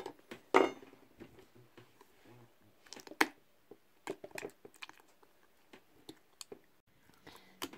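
Thick pink PVA-glue slime being stirred with a plastic spatula in a glass bowl: irregular wet squelches and sticky smacks, with small clicks of the spatula, the loudest about half a second and about three seconds in. The slime is thickening as it takes up the borax activator.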